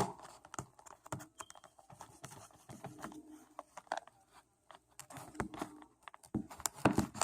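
Irregular clicks, taps and scrapes of a utility knife cutting and prying open a small accessories box by hand.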